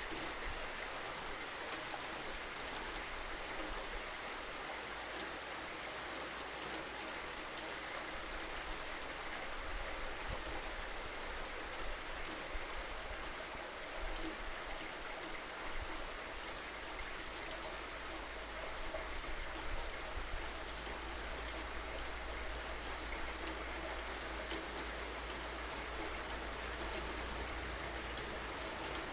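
Steady rainfall: a constant hiss of rain with scattered drops pattering on surfaces.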